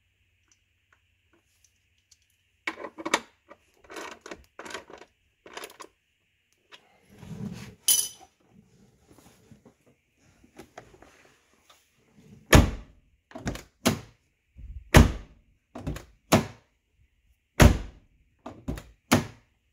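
Lincoln Town Car door being opened and shut over and over: a run of about nine loud, sharp latch and handle clunks in the last seven seconds, with the door now latching without a click on its new bushed striker bolt. Earlier, a few lighter clicks and knocks from a hand tool adjusting the striker.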